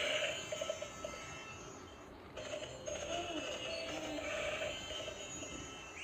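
Walking plush unicorn toy playing a tinny electronic tune, with a short break about two seconds in.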